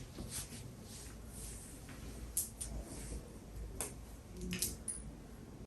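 Faint, scattered small clicks and light rustles, like quiet handling noise, in an otherwise quiet room.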